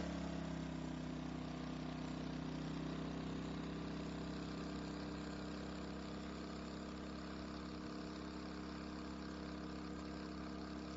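HK2000is inverter generator running steadily. Its pitch eases down a little in the first second, then holds even.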